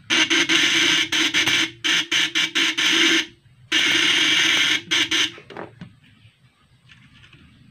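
Homemade battery-powered fish shocker running, its contact-point (platino) interrupter chattering into a loud harsh buzz over a steady hum. It is switched on in bursts: about a second and a half, then several short pulses, another burst of about a second, a few short pulses, and it stops about five and a half seconds in.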